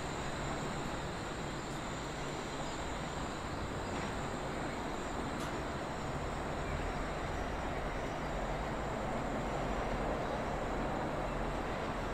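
Train running at a station: a steady rumble with a low hum, swelling a little in the second half.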